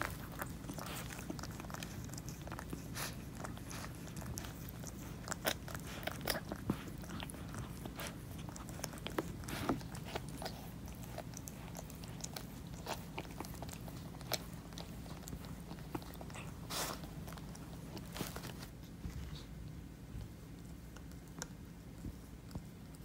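Calico mother cat licking and chewing at her newborn kitten: irregular wet mouth clicks and smacks, thinning out near the end, over a low steady hum.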